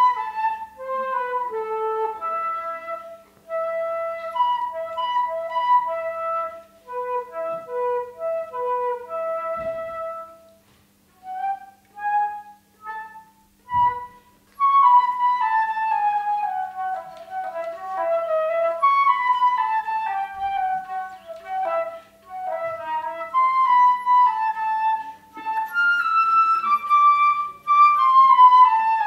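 Solo concert flute playing a melody: held notes for the first ten seconds, a short pause with a few brief notes, then quicker running passages that fall and rise.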